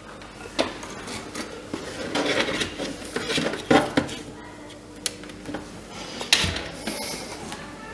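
Scattered light clinks and knocks of hard objects being handled, about five in eight seconds, over a faint steady low hum.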